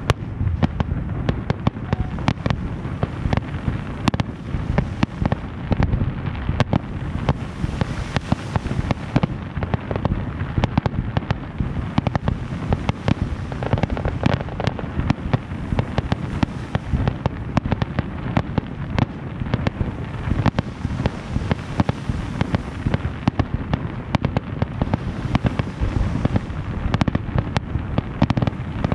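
Fireworks going off in a continuous rapid barrage of sharp bangs, many a second, over a steady low rumble.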